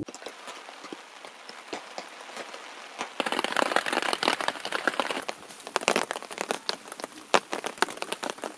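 Steady rain falling on a nylon tarp and the forest floor, with many sharp drops landing and dripping off the tarp edge. It becomes louder and denser about three seconds in.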